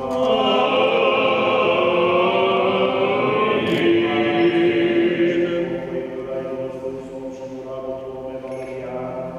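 Male voices chanting an Orthodox memorial-service (parastos) hymn together in long held notes. The singing is fuller for the first six seconds or so, then softer.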